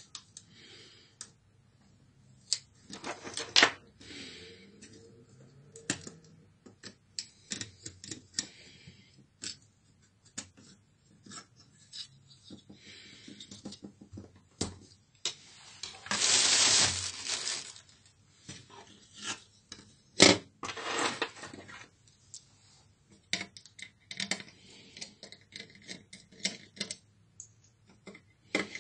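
Laptop parts being handled during disassembly: irregular clicks, taps and light scrapes of plastic and a circuit board as cables are unplugged and the motherboard is lifted out of the plastic base. Around the middle there is a rasping scrape lasting about two seconds, and a few seconds later a single sharp click that is the loudest sound.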